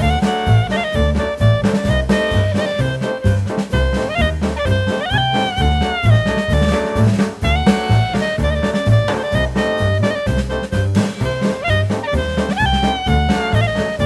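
Background jazz music: a saxophone-like melody over a steady bass and drum beat.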